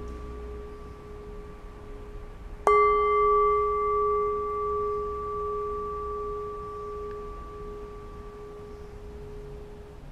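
A metal bell struck once about two and a half seconds in, ringing with a clear tone and higher overtones that slowly fade away. The ring of an earlier strike is still sounding at the start. It is the signal to begin evening chanting.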